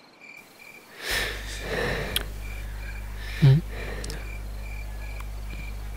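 A person takes a heavy breath about a second in, then gives a short low voiced sound, like a brief hum, a second or so later. Under it a cricket chirps about twice a second over a steady low hum.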